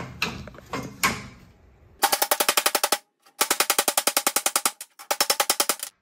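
Ball peen hammer striking the steel clutch pedal bracket to fold a tab over: a few lighter knocks at first, then three fast runs of sharp, evenly spaced metal-on-metal blows, well over ten a second, each run stopping abruptly.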